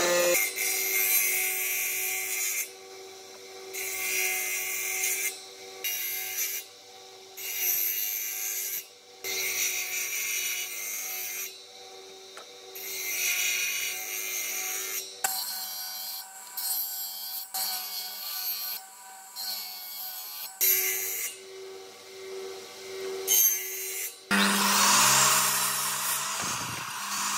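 Power tools cutting pine in a run of short passes: a drill press driving a square mortising chisel into the wood, then a spinning circular saw blade. Near the end a miter saw cuts through a board, and its pitch falls as the blade slows.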